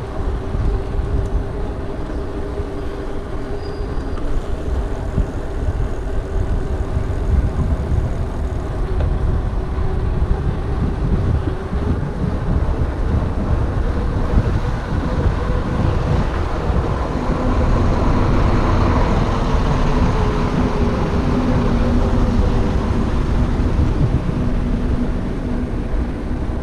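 Wind rushing over the microphone and the tyre rumble of a Giant Talon 2 mountain bike riding on an asphalt road, with road traffic mixed in. The noise swells about two-thirds of the way through, when a steady hum joins it.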